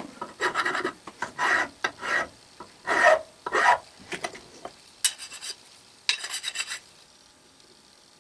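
Flat hand file deburring the edge of a milled aluminium block, in a series of short scraping strokes about twice a second. About five and six seconds in come two shorter, brighter scrapes.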